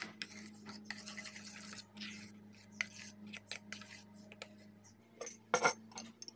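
Steel spoon scraping and stirring thick shampoo in a stainless steel bowl, a run of short scrapes. A louder knock comes about five and a half seconds in, as the spoon is set down in the bowl.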